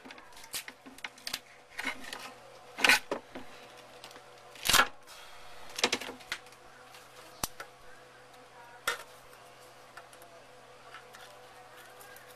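Clicks, clinks and scrapes of tools and fiberglass mat being handled on a metal-sheeted workbench, with several sharp clatters in the first three quarters and a faint steady hum underneath.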